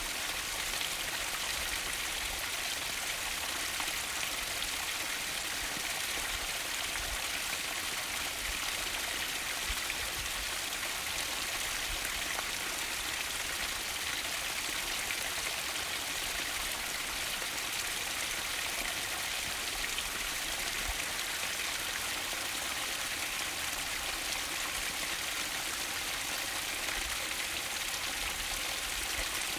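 Mountain stream rushing, a steady, even hiss of flowing water.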